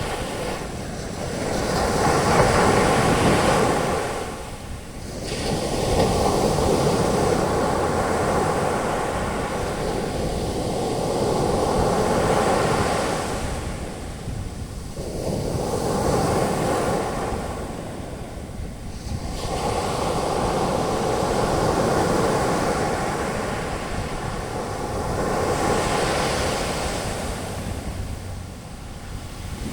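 Sea surf: waves breaking and washing up the beach as foam, the rushing noise swelling and easing every few seconds.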